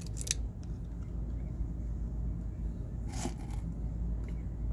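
A few small clicks of 6 mm airsoft BBs being pressed one at a time into a spring pistol's magazine by hand, one near the start and a longer one about three seconds in, over a low steady hum.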